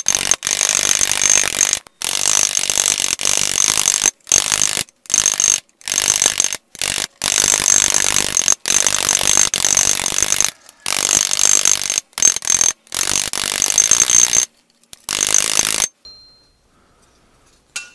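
Small hammer tapping rapidly on a sheet-steel helmet ocular held over a bench anvil horn, stippling the steel: quick steel-on-steel blows with a high metallic ring, in runs of a second or so with short breaks, stopping about sixteen seconds in.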